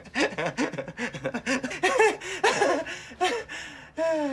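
A man laughing hard in rapid, choppy bursts, his pitch bouncing up and down. About four seconds in he lets out one long held note that slowly falls in pitch.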